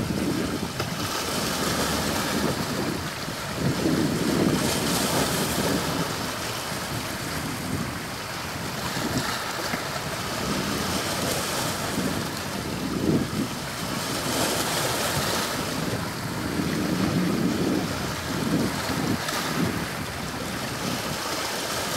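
Sea waves breaking and washing on the shore, swelling and receding every few seconds, with wind buffeting the microphone.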